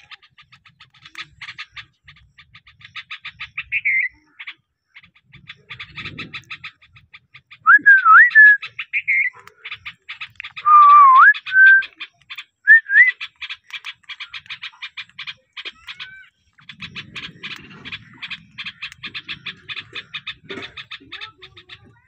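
Rose-ringed parakeet calling: a few short whistles that glide up and down, the loudest sounds, over rapid repeated trains of clicky chirps.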